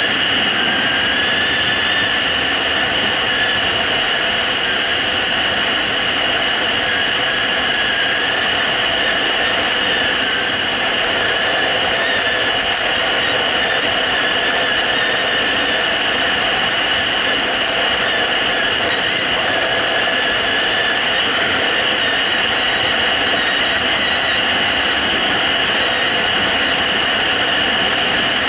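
Suzuki GSR750's inline-four engine running evenly as the motorcycle rides at a steady speed, under a steady rush of wind noise.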